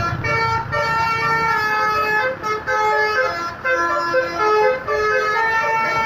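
Bus basuri musical air horn playing a melody of short and held notes that step up and down in pitch, with an engine rumbling underneath near the start.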